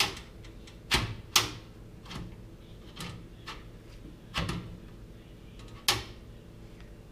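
Sharp clicks and knocks, about eight in all, from the magnetic front dust filter of a Bitfenix Aegis PC case being handled and seated against the case's front frame. The loudest come about a second in and near six seconds.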